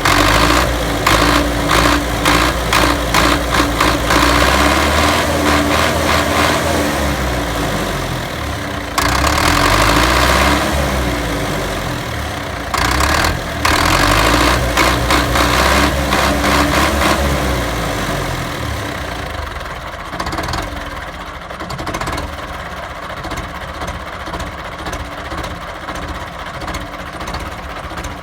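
Belarus MTZ tractor's diesel engine running, revved up and back down twice with bursts of sharp clatter, then settling to a quieter, steady idle for the last several seconds.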